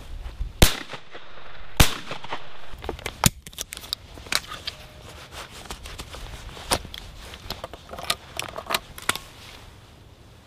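Two shots from a 12-bore Fausti side-by-side shotgun, a little over a second apart, loaded with light game cartridges of No. 6 shot. They are followed by a run of metallic clicks and knocks as the gun is broken open and reloaded.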